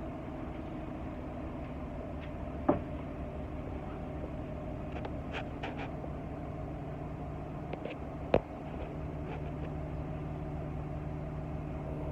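Inside a 2010 Nova Bus LFS city bus: a steady low running hum from the bus, with two sharp clicks or knocks about three and eight seconds in.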